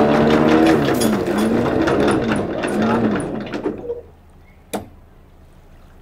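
Catamaran's electric anchor windlass running, letting out chain to load the anchor bridle, with a rhythmic mechanical pulsing that stops about four seconds in. A single sharp click follows shortly after.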